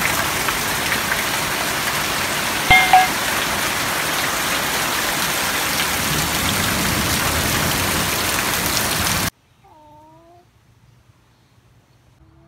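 Heavy rain pouring down in a steady hiss, with a brief louder knock and short tone about three seconds in. About nine seconds in the rain cuts off abruptly, leaving a quiet stretch with a few faint pitched calls.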